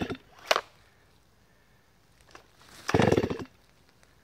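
Stihl MS250 two-stroke chainsaw's recoil starter pulled twice, right at the start and again about three seconds in. Each pull is a brief whirr of the engine turning over without starting, with a short clack just after the first pull.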